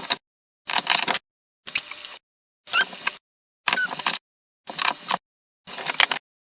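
Short bursts of clicking and scraping from metal parts being handled at the workbench, about one burst a second with dead silence between them, the sound chopped up as in a sped-up edit.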